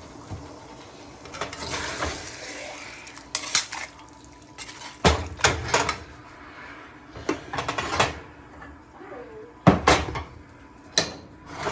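Metal utensils knocking and clinking against pots and dishes in a dozen or so separate sharp strikes, some in quick runs of two or three.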